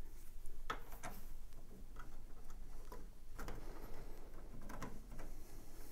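Irregular small clicks and taps of a Wi-Fi antenna being twisted by hand onto the brass threaded connector on the back of a desktop PC case.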